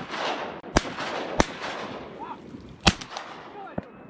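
Shotgun shots at passing ducks: three loud shots, the second about half a second after the first and the third about a second and a half later.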